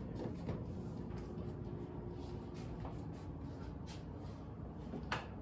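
Quiet room tone: a low steady hum with scattered faint clicks and taps, and one sharper click about five seconds in.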